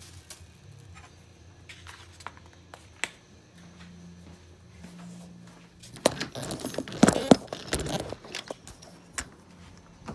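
A few faint handling clicks, then from about six seconds in a run of loud clicks and rattles as a metal door knob and deadbolt are worked to open a door.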